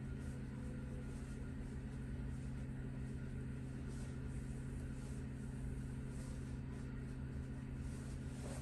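Steady low electrical or mechanical hum, like a fan or appliance running, unchanging throughout.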